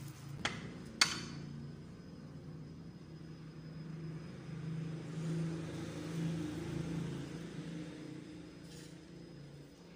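Two sharp clicks about half a second apart near the start, a serving spoon knocking against the dishware while biko is spread and latik brought over, followed by a low rumble that swells in the middle and then eases off.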